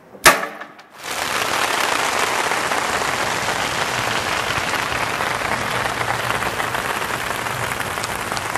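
A cherry bomb packed into a banana explodes with one sharp bang about a third of a second in. From about a second in a steady, even hiss, like applause or rain, takes over and runs on.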